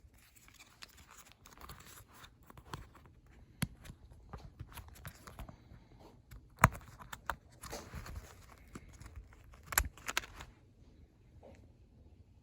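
Small product box and its packaging being handled and opened by hand: scattered rustling, scraping and sharp clicks, the loudest about six and a half seconds in and another cluster near ten seconds.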